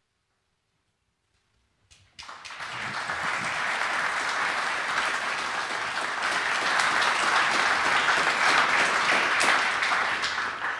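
Audience applauding in a large hall, starting suddenly about two seconds in and fading away near the end.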